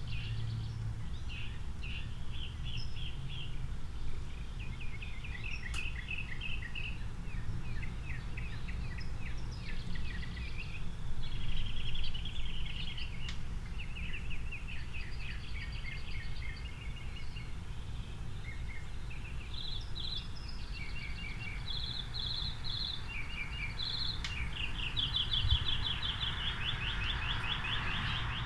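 Birds chirping in quick repeated runs of notes, over a steady low rumble of distant car traffic. The traffic noise swells near the end.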